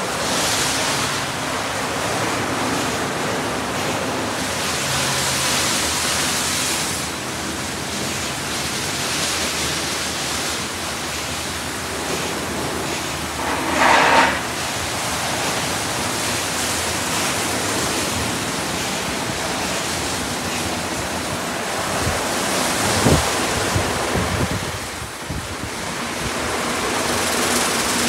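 PDQ ProTouch Tandem automatic car wash running its cycle: a steady hiss of water spraying onto the car and the bay. A brief louder rush comes about halfway through, and a single short knock comes later on.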